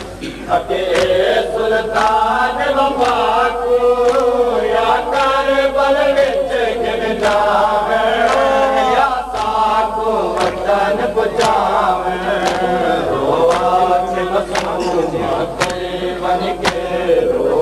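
A noha (Shia lament) chanted by men to a slow, wavering melody. It is punctuated by the sharp slaps of mourners beating their bare chests in matam, roughly once a second.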